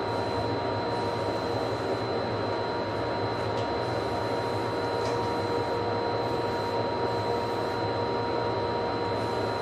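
Steady mechanical drone of a running motor, a constant whir with a low hum and a thin high whine that does not change.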